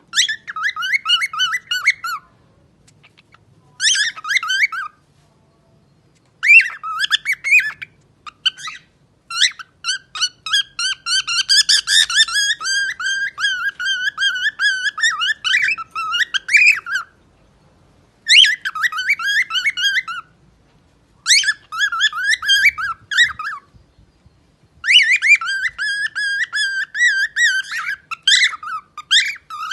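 Pet parrot singing in phrases of rapid, warbling whistled notes, with pauses between them; the longest phrase, from about a third of the way in, runs some seven seconds.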